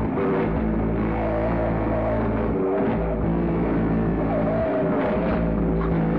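Experimental noise music played from a cassette: a dense, steady drone of low hum and stacked tones, with a wavering higher tone sliding up and down twice. The low hum briefly drops out twice.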